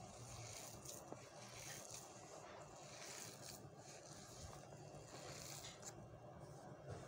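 Faint, repeated scratchy rubbing and squishing of a hand kneading coarsely ground chana dal and spices against the sides of a plastic tub.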